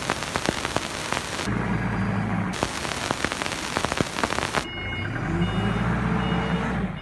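HELI rough-terrain forklift engine running as the forklift drives over rough dirt ground, twice masked for a second or two by loud crackling noise. From about five seconds in, a warning beeper sounds in short repeated beeps.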